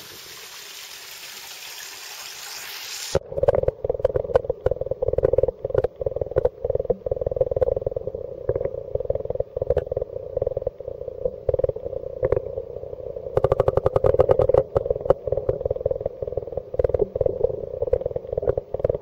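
Open-air hiss that cuts off abruptly about three seconds in as the waterproof Sanyo Xacti camcorder goes under the pond's surface. From then on the sound is muffled, with a steady hum and many irregular clicks and knocks from the submerged camcorder's body being handled, thickest a little past the middle.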